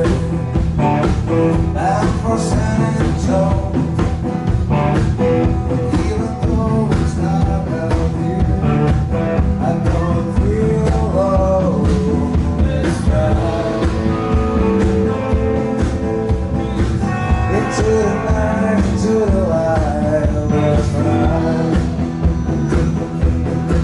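Live blues-rock band playing: electric guitars with bending lines over bass guitar and a drum kit keeping a steady beat.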